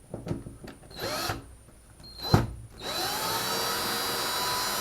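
Power drill working on a wall-mounted shelving track: a short spin-up about a second in, a sharp knock, then the drill running at steady speed with a level whine from about three seconds in.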